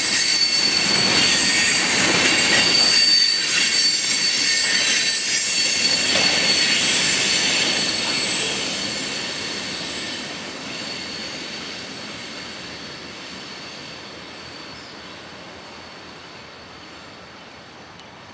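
Freight cars of a CSX manifest train rolling past on steel wheels, with a steady high-pitched wheel squeal. The sound is loud for the first several seconds, then fades away steadily as the tail of the train moves off.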